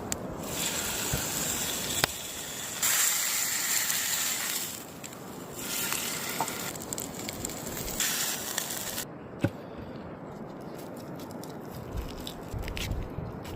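Meat cooking over a fire, sizzling and crackling: a steady hiss with scattered sharp pops, in louder spells that start and stop abruptly.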